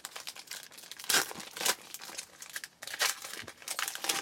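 Foil wrapper of a 2012 Bowman Platinum baseball card pack being torn open and crinkled by hand: an irregular string of sharp crackles and rips.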